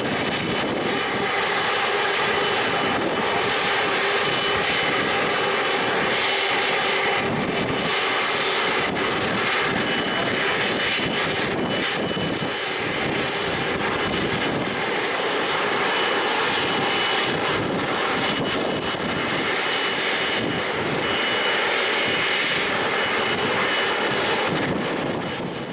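Airliner engines running, heard across an airport apron: a steady wash of engine noise with a thin, high whine on top.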